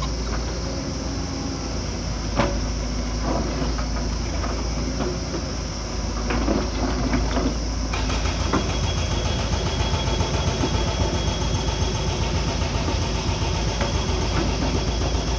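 Diesel engine of heavy construction machinery running steadily, with scattered metallic knocks and clanks in the first half. About halfway through the sound changes, and a steady whine joins the engine.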